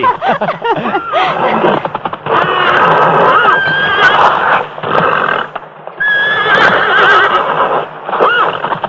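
A frightened horse whinnying and neighing over and over, in rising-and-falling calls.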